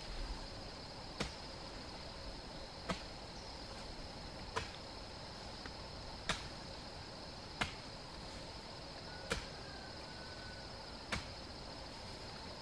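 A digging tool chopping into soil in a slow, even rhythm, seven strokes about one every one and a half to two seconds. Under it runs a steady high-pitched insect drone.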